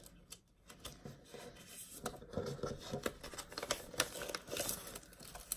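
Paper and plastic packaging rustling and crinkling as small stationery items are handled and sorted, with irregular light clicks and scrapes.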